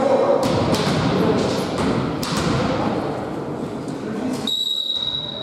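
A few thuds and knocks in a large sports hall, then the volleyball referee's whistle blown once near the end: one steady, high tone about a second long, the signal that authorises the serve.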